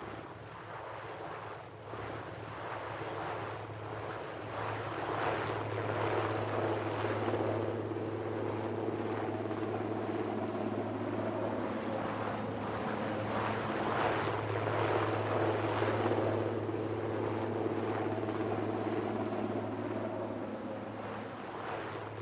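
A Sikorsky S-61 twin-turbine helicopter lifting off and flying away, a steady low rotor and turbine hum that grows louder over the first few seconds and then holds steady.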